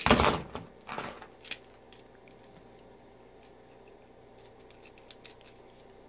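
Handling noise from a coax compression tool and an RG6 compression connector being repositioned in its die: a short burst of noise at the start and again about a second in, a sharp click soon after, then a few faint light clicks near the end.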